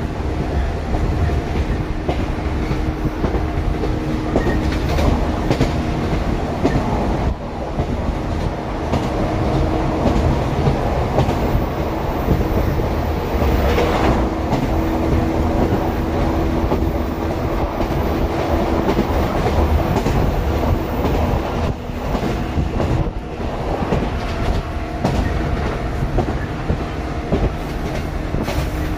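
Shinano Railway 115 series electric train (KuMoHa 115-1067, a motor car) running at speed, heard inside the carriage with the windows open: a steady rumble of wheels on rail, a hum that comes and goes, and clickety-clack over rail joints.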